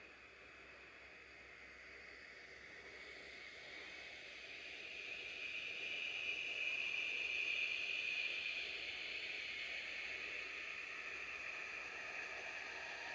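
A hiss that slowly swells, is loudest about seven seconds in, and then eases off.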